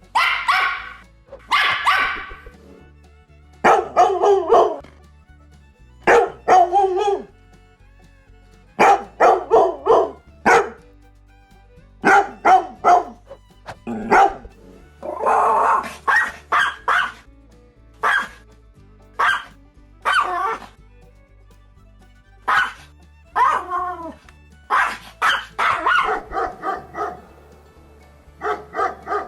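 Dog barking repeatedly, singly and in quick runs of several barks, with short pauses between, over background music.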